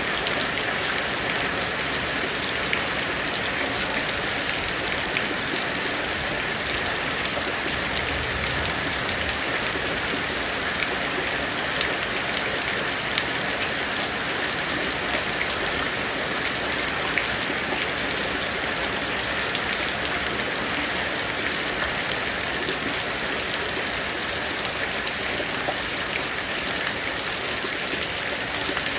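Heavy rain falling steadily, a dense hiss of rain with scattered sharp ticks of single drops striking.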